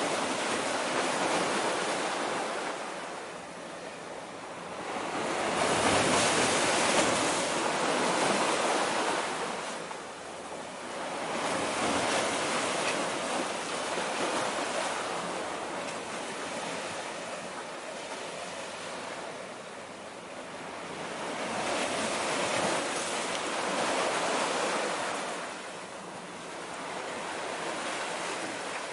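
Small waves washing against the concrete tetrapods of a breakwater: a hiss that swells and fades every several seconds.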